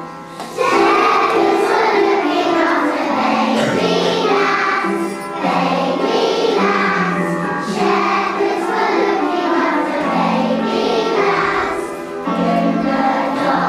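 Children's choir singing a carol with instrumental accompaniment, coming in about half a second in.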